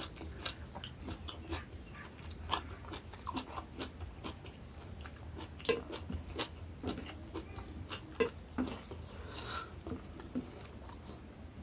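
Close-miked chewing and mouth sounds of a person eating rice with taro curry: a run of quick, irregular wet clicks and smacks, a few of them louder.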